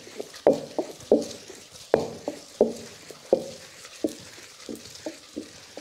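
A heavy stone pestle turned by hand in a traditional stone grinding mortar, knocking and grating against the stone as it crushes dry grated coconut and whole spices into masala. The knocks come about twice a second, loudest in the first half and softer near the end.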